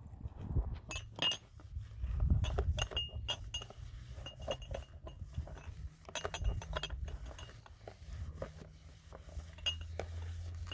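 Irregular series of light clinks and taps, many with a brief ringing tone, over a low steady hum.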